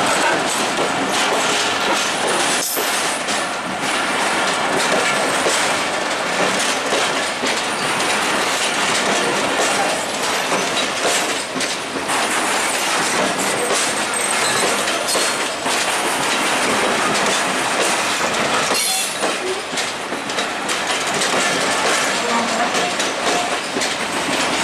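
Passenger train coaches rolling on the track, with a steady loud rumble and rattle and frequent clacks of wheels over rail joints.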